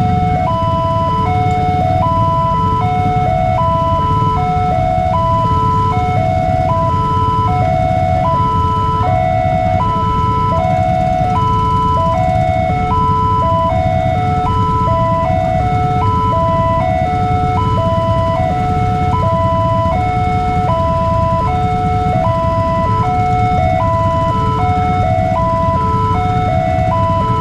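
Railway level-crossing warning alarm sounding while the barrier is down, signalling an approaching train. It is an electronic two-tone signal that alternates steadily between a high and a low tone, each held a little under a second.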